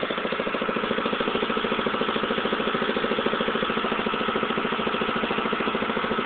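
Lawn Chief riding lawn mower's engine idling steadily, with an even, regular beat.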